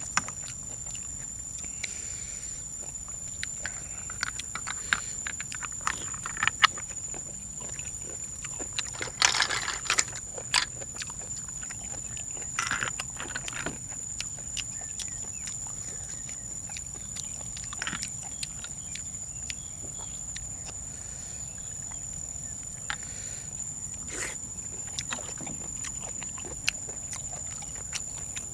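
A person eating close to the microphone: irregular chewing, crunching and mouth clicks and smacks, with a cluster of louder crunches about a third of the way in. A steady high-pitched whine runs underneath.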